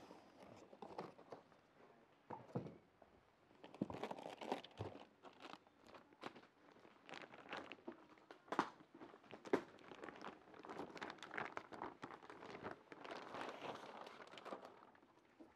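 Cardboard box flaps and a plastic wrapping bag being handled as a power amplifier is lifted out of its box and unwrapped: irregular rustling and crinkling with small knocks, and a few footsteps.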